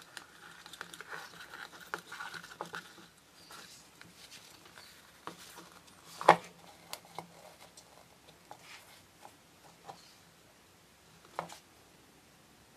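Handling sounds of a miniature dollhouse being fitted onto its display base: light rustling with scattered small clicks and taps, and one sharper tap about six seconds in.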